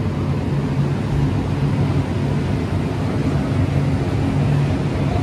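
Melting furnace burner in a bell foundry running with a steady low drone.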